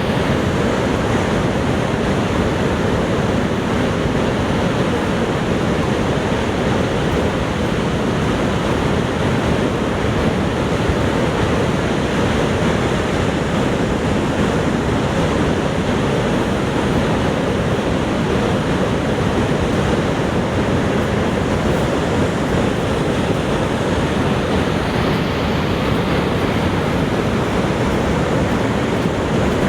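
Niagara Falls: a steady, loud rush of falling water, deep and even without any break or change.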